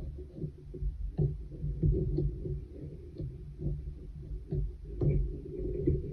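Irregular dull low knocks and rubbing as a long metal weaving needle is worked over and under the yarn strands on a wooden pin loom.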